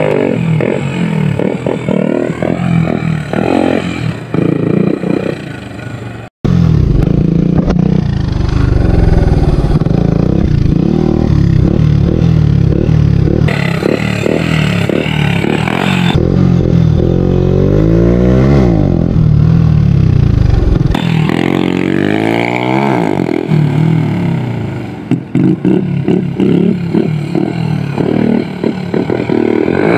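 Hero Honda motorcycle's single-cylinder four-stroke engine running loud through an M4 aftermarket exhaust with the dB killer removed, its note rising and falling as the rider revs and rides. The sound cuts out briefly about six seconds in.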